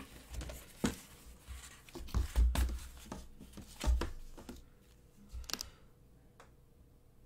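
Hands handling a GSA coin box: a cardboard sleeve slides off, the hinged box is opened and a hard plastic coin holder is lifted out. This gives a string of knocks, clicks and scrapes over the first six seconds or so, then it goes quiet.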